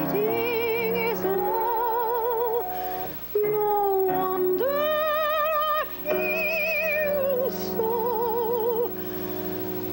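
A woman singing a show tune with piano accompaniment, holding long notes with a wide vibrato over sustained piano chords. She breaks briefly for breath about three and six seconds in.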